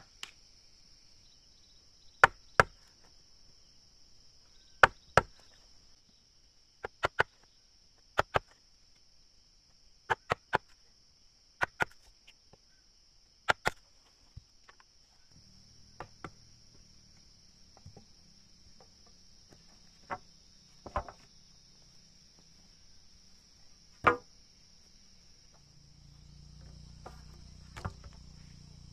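Sharp blows of a hand tool on wood, mostly in pairs, repeating every two seconds or so, the kind made when chopping or shaping timber. Insects buzz steadily throughout, and a faint low hum comes in about halfway through.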